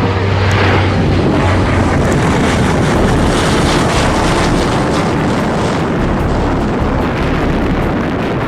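C-130 Hercules four-engine turboprop aircraft running, a loud steady drone with a low hum, with wind noise on the microphone.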